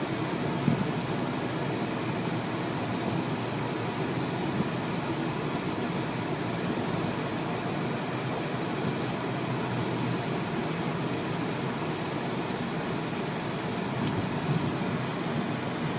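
Steady rushing noise with no tones in it, broken by a few faint knocks.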